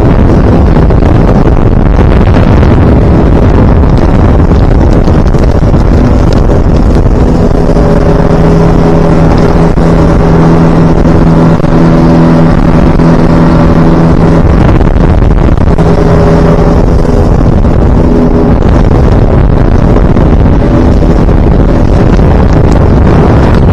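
Outboard motor driving a small boat at speed, with wind buffeting the microphone and the hull rushing over the water. A steady engine hum stands out above the wind from about six seconds in until about eighteen seconds in.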